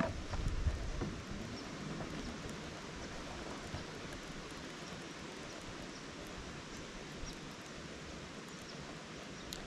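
Steady outdoor background hiss on open water, with low handling bumps in the first second and a few faint, short, high chirps or ticks scattered through.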